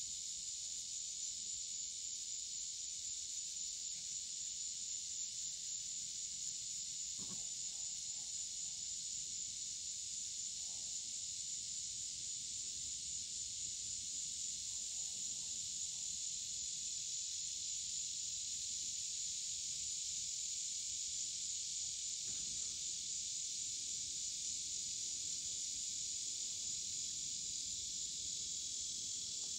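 Steady chorus of insects such as crickets, a continuous high-pitched shrill drone.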